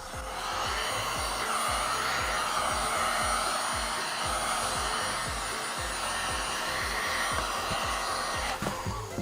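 Heat gun blowing steadily, warming the adhesive that seals a motorcycle headlight lens to its housing so the lens can be pulled off. It starts at once and cuts off shortly before the end.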